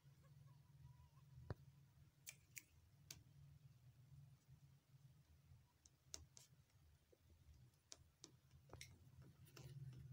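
Faint, scattered mouth clicks of a kitten eating from a small bowl, a dozen or so irregular ticks over a low, steady hum.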